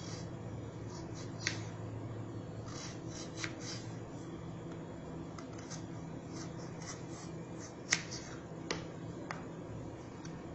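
Kitchen knife slicing a peeled raw potato into thick slices: irregular sharp clicks and crisp cuts, the loudest about eight seconds in, over a low steady hum.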